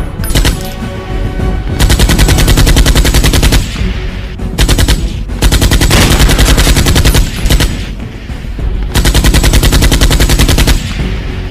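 Automatic gunfire: three long bursts of rapid machine-gun fire, each a couple of seconds long, separated by short pauses.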